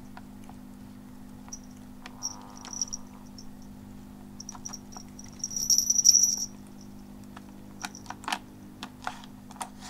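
Kitten pawing at ice cubes in a pet water fountain: scattered light clicks and taps on the plastic bowl and high clinks, with a louder, longer clinking rattle about halfway through. The fountain's pump hums steadily underneath.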